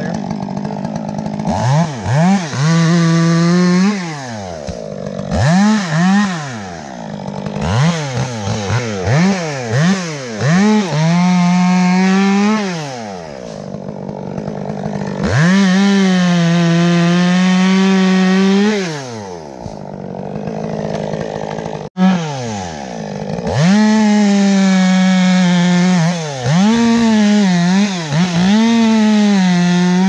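Two-stroke top-handle chainsaw revving up and down in short blips, then held at full revs through longer cuts into sweet gum wood.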